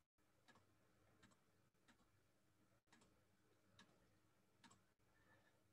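Near silence with about six faint, sharp computer mouse clicks at uneven intervals.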